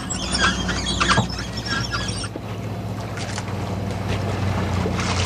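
A boat's engine running with a steady low drone, under wind and water noise. There are scattered clicks and rustles in the first two seconds.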